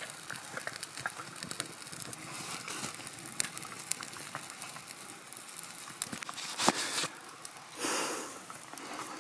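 Small kindling fire of twigs and bark crackling with scattered sharp snaps, mixed with the rustle and snap of dry twigs being piled onto it. A short rush of noise comes near the end.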